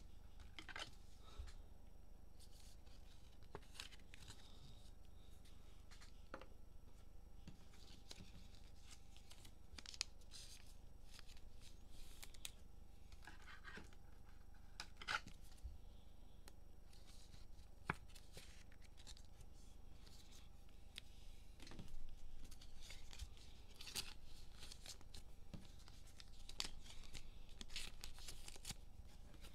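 Cellophane-wrapped trading-card packs being torn open and cards handled, with scattered small clicks of cards and plastic holders and a few short bursts of tearing and rustling, busier near the end.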